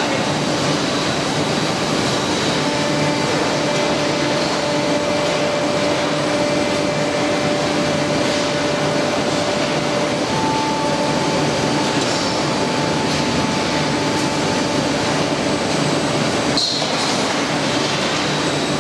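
Steady din of an automatic palletizing line running, with conveyors and drive motors going. Faint steady whining tones come and go in pitch, and the noise dips briefly near the end.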